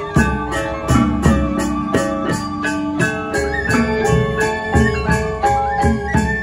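Balinese gamelan gong ensemble playing: bronze metallophones struck in a fast even pulse of about four strokes a second with ringing tones, small cymbals clashing on the beat, and deep gong strokes every second or so.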